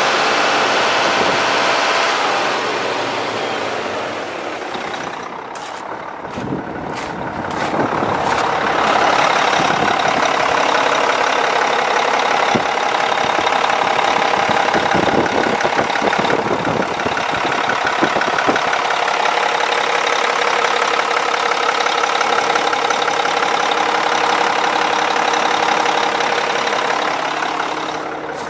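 Mack E7-350 inline-six diesel engine idling steadily, heard up close in the engine bay, with a brief dip in loudness about five seconds in.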